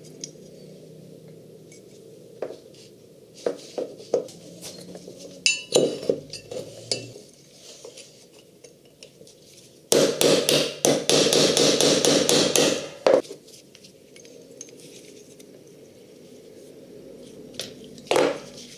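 Hammer striking a punch to drive the pivot pins out of a rusty steel parachute hook: a loud, fast run of metallic blows starting about ten seconds in and lasting some three seconds. Scattered clinks of loose metal parts being handled come before it, and one more near the end.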